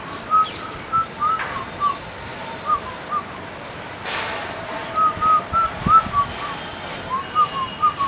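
A man whistling a tune through pursed lips: a run of short, quick notes with small upward slides between them, broken by a pause of nearly two seconds about halfway through.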